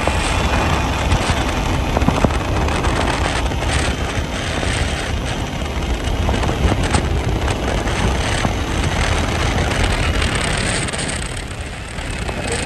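Wind rushing over the microphone, with road and tyre noise, on an Ather 450X electric scooter ridden at about 80 km/h; the rush drops a little near the end as the speed eases off.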